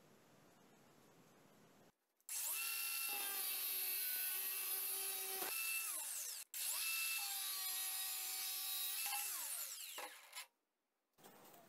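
Cordless drill-driver motor whining in two spells of about four seconds each, with a short break between them and the pitch shifting as it starts and winds down, driving a hook's threaded shank into wood.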